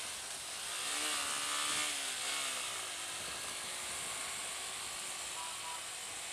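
Motorcycle engine running on the move over a steady rush of wind and road noise; the engine note swells and bends up and down about a second in, then settles.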